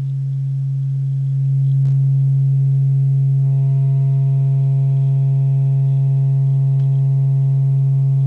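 Steady low sine-wave test tone of roughly 120 Hz from a function generator, heard through a speaker fed by the amplifier under power test. It grows louder over the first two seconds. From about three and a half seconds in it takes on a buzzy edge of added overtones, the amplifier being driven to the point of distortion.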